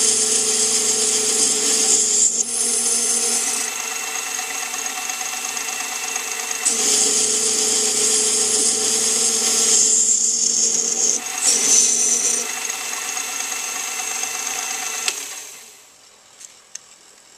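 Small metal lathe turning aluminium bar stock: the motor runs with a steady whine and the tool cutting the spinning blank adds a bright hiss, in two long cuts with a lighter spell between them. The lathe winds down near the end, leaving only a few light clicks.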